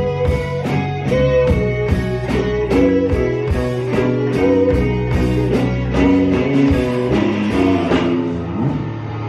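Live rock band playing: an electric guitar melody over bass and drums keeping a steady beat. The drum strokes stop near the end and the sound thins to sustained guitar and bass.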